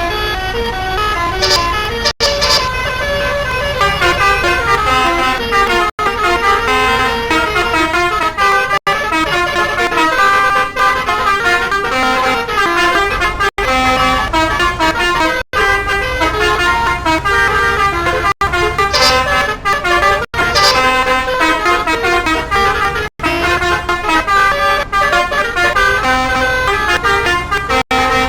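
A bus's basuri telolet horn, a multi-trumpet musical horn, playing quick stepping tunes over and over, broken by a few sudden short gaps.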